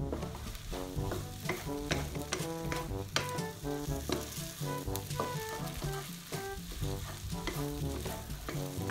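Instant noodles sizzling as they stir-fry in a non-stick wok, with a wooden spatula scraping and knocking against the pan as they are tossed. Light background music with a steady beat plays underneath.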